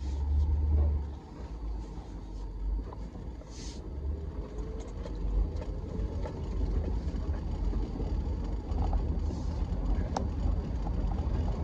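Pickup truck driving, heard from inside the cab: a steady low rumble of engine and road noise, with a few light clicks and rattles.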